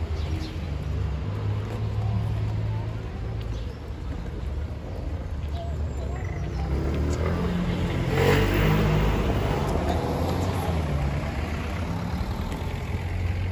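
City street traffic: car engines running at low speed in the street. One vehicle passes close about eight seconds in and is the loudest sound.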